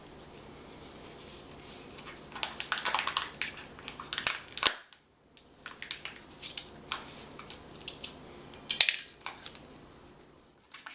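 A Kinder Surprise egg being unwrapped and broken open by hand: foil crinkling and the shell cracking, with irregular crackles and sharp clicks. The loudest snaps come about four and a half seconds in and again near the end.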